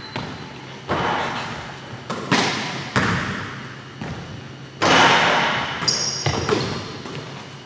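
Basketballs bouncing on a hardwood gym floor: several separate thuds a second or so apart, each with a long echo in the large gym.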